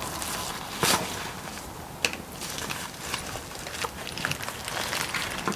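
Packaging of a mail-order part being handled and opened: light crinkling and rustling with a few sharp clicks, the clearest about one and two seconds in.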